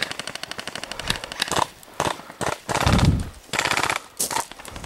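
Airsoft electric guns firing in rapid full-auto bursts, several strings of fast even clicks broken by short pauses. A loud low rumble about three seconds in is the loudest sound.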